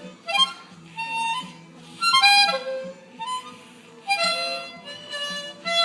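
Harmonica played in short, uneven blows of a few notes at a time, with brief pauses between them.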